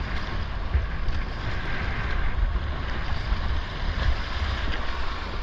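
Steady rush of whitewater, with wind and handling rumble buffeting the GoPro's microphone.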